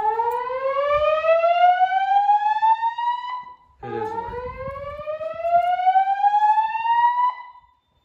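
Gentex fire alarm speaker strobes sounding the slow whoop evacuation tone of a Notifier NFS2-640 DVC voice-evacuation system. There are two whoops, each a rising sweep about three and a half seconds long with a short gap between them.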